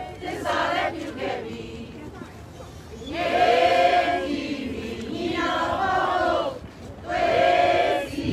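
A group of protesters chanting slogans together, led by a woman with a raised fist. Several chanted phrases, each one to two seconds long, with short pauses between them.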